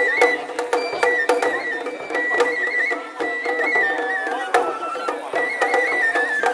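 Japanese festival hayashi music: a high bamboo-flute melody that steps between held notes, over frequent sharp percussion strikes.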